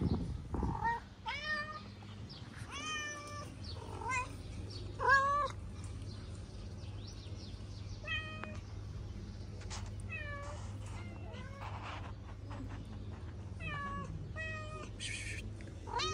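Kittens meowing again and again in short, high-pitched calls, about a dozen of them, the loudest about five seconds in, over a faint steady low hum.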